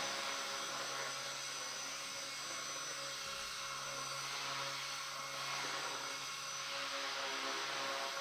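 Align T-Rex 250 electric RC helicopter in flight, its motor and rotor giving a steady whine that swells slightly now and then. It is running on a battery that the pilot finds short of punch.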